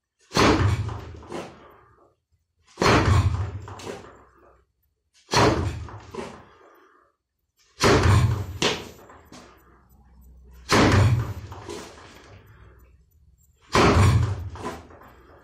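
Jab punches (kizami zuki) striking a wooden makiwara post: six hard thuds about every two and a half to three seconds, each followed by a couple of lighter knocks.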